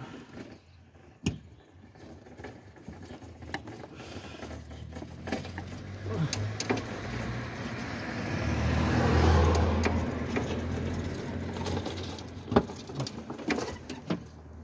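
Light clicks and metal rattles of the clutch master cylinder and its fittings being worked loose and handled behind a Nissan NV200's firewall. A low rushing noise builds across the middle, peaks a little past halfway and fades.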